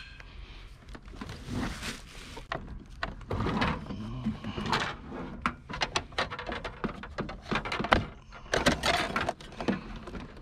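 Scrap and junk being rummaged through and moved by hand: an irregular run of knocks, clatters and scrapes.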